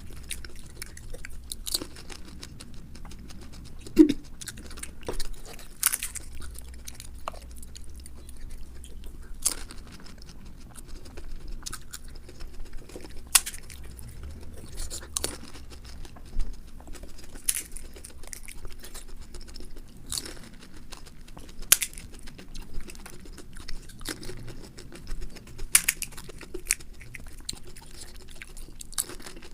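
Close-miked eating of pani puri: crisp puri shells crunching and being chewed, with sharp crunches every second or two over a faint low hum.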